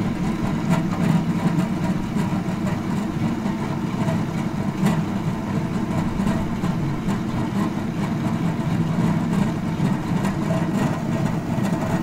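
Comfort Plus three-stone table-top wet grinder running steadily. Its three stones turn in a drum that stays still, grinding soaked urad dal into batter, with a steady low motor hum.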